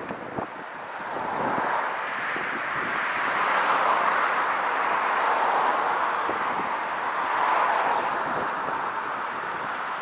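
Wind rushing over the microphone of a camera held outside a moving car, mixed with the car's road noise: a steady rushing sound that grows louder a second or two in and rises and eases slightly after that.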